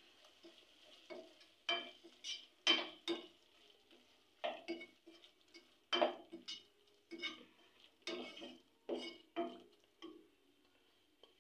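A slotted spatula stirring soya chunks and masala in a non-stick pan: irregular scrapes and taps against the pan, roughly one or two a second, with a short pause about a third of the way in.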